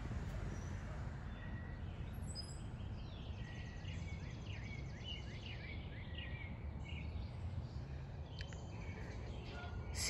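Outdoor ambience: a steady low rumble, with a songbird chirping a quick run of short notes from a couple of seconds in until about two-thirds of the way through.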